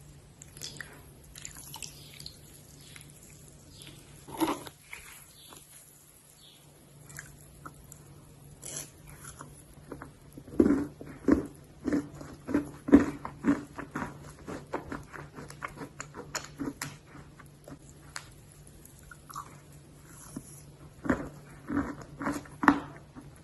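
Close-up biting and crunching of hard, dry clay or chalk being eaten: one sharp bite about four seconds in, then a run of crisp crunches about two a second, and another short run of chews near the end.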